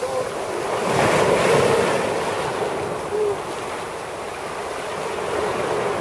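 Small sea waves breaking and washing up over a sandy shore, the wash swelling about a second in, easing off, then building again near the end.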